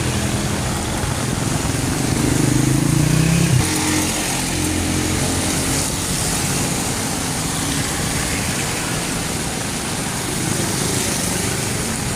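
Rain and street traffic in a steady wash of noise, with a motor vehicle's engine close by that rises in pitch about two seconds in and cuts off suddenly a second and a half later.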